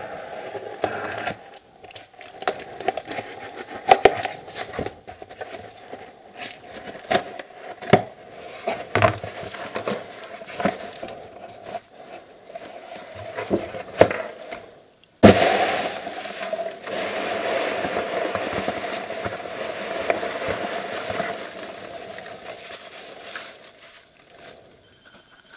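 A package being opened by hand: packaging crinkling and crackling with many small sharp clicks, then, about halfway through, a sudden continuous rustling that runs for several seconds.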